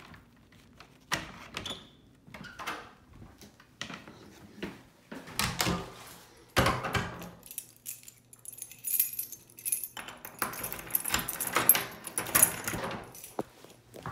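A bunch of keys jangling and clinking, loudest in the second half, among irregular knocks and rustles of handling.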